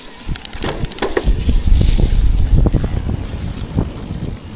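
Mountain bike setting off down a dirt trail: a few sharp clicks and knocks from the bike, then from about a second in the loud rumble of riding, with wind buffeting the microphone, tyres on the dirt and the bike rattling over bumps.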